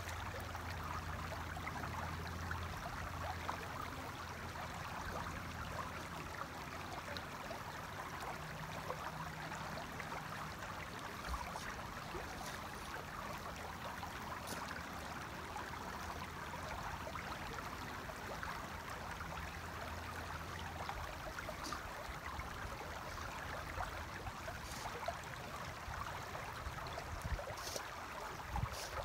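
Shallow river water flowing over stones: a steady, even rush.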